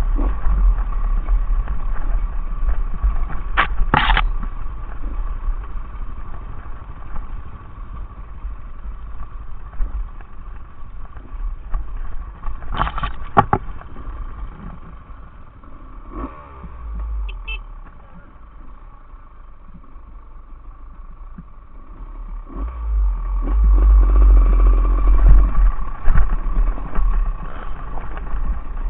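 Enduro motorcycle engine running on a rough track. It grows quieter through the middle and louder again near the end, with a few sharp knocks along the way.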